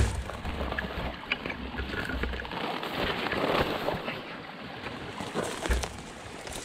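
Twigs and dry leaves rustling and crackling as someone pushes through dense brush, with scattered snaps. Wind buffets the microphone during the first couple of seconds.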